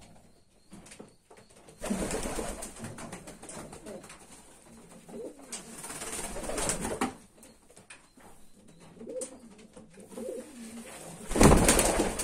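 Racing pigeons cooing, several low coos in turn, with a loud burst of noise near the end.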